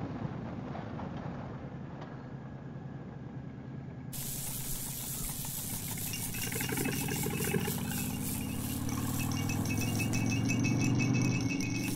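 Harley-Davidson V-twin motorcycle under way, its engine running over road and wind noise. From about six seconds in, the engine note climbs steadily and grows louder as the bike speeds up.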